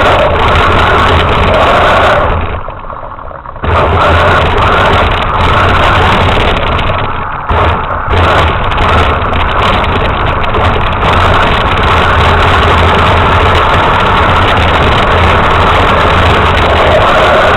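RC truck's motor running steadily on ice, its pitch swelling and easing with the throttle. It cuts off for about a second and a half some two seconds in, then starts again at once.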